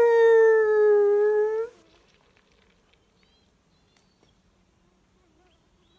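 A man's imitation wolf howl, close and loud, used as a wolf call: one long call that slides slowly down in pitch and cuts off about two seconds in, followed by near silence with a few faint chirps.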